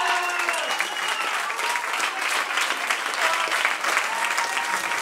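A room full of people applauding with dense, steady clapping, with a few voices calling out over it.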